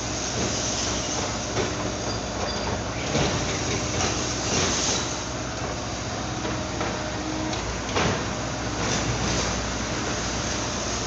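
Liebherr 924 crawler excavator's diesel engine running steadily as its hydraulic arm works in demolition rubble. There are a few knocks and crashes of broken concrete, the sharpest about eight seconds in.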